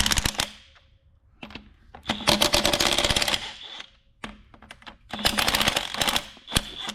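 Hand ratchet clicking in quick runs of about a second each, three times, as it loosens the nuts on a connecting rod cap.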